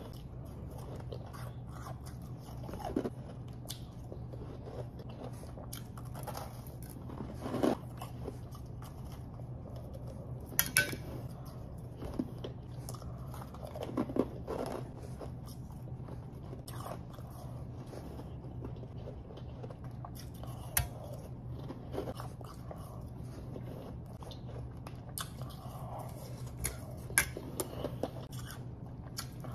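Close-miked crunching bites and chewing of refrozen powdery snow ice, eaten by hand. Sharp crunches come every few seconds between softer chewing, over a steady low hum.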